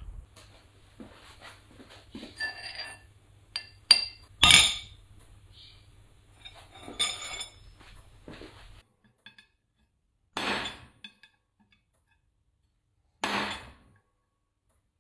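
Scattered metallic clinks and clanks of steel being handled in a blacksmith's shop, a few of them sharp and ringing, over a low steady hum that stops about nine seconds in. Two short noisy bursts follow.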